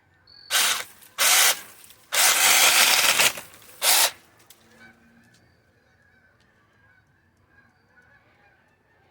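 6-inch battery-powered mini chainsaw run in four short bursts, the third the longest at over a second, as it is tried out on tree limbs.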